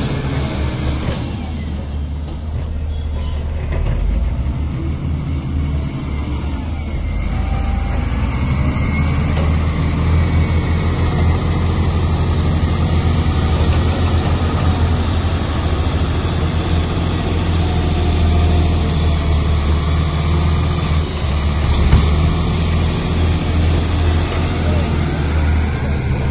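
Heavy diesel engine of a hydraulic excavator running steadily, its level rising and falling a little as it works.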